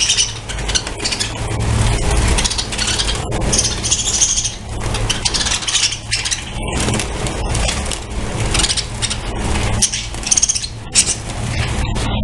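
A colony of budgerigars chattering and squawking, with many sharp clicks and knocks over a steady low rumble. Louder bursts of high chatter come near the start, about four seconds in and again about ten seconds in.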